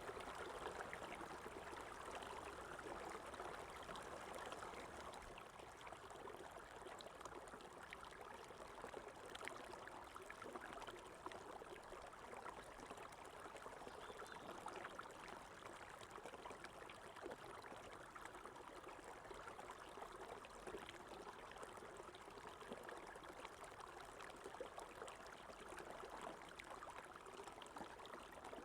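Faint running water of a small stream, flowing steadily with fine trickling splashes.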